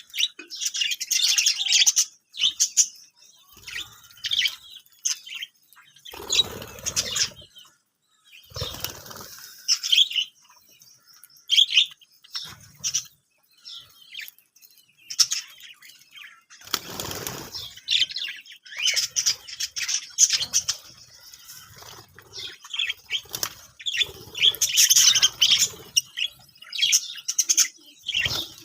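Budgerigars chirping and chattering in quick, high runs of twittering, with three short bouts of wing flapping.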